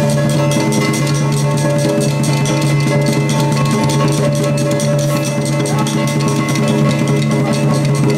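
Loud music: sustained held tones over steady, dense drumming and percussion.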